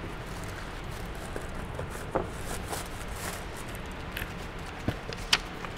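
A steady low room hum, with a few light clicks and taps scattered through it as parcels and small machined parts are handled.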